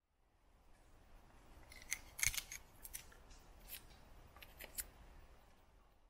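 Joker Nessmuk knife blade carving a wooden stick: a handful of short, sharp cutting strokes, the loudest about two seconds in and more near four and a half seconds, over a faint background hiss.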